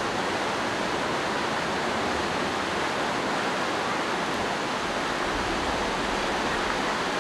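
Creek water pouring over a low weir, a steady, unbroken rushing.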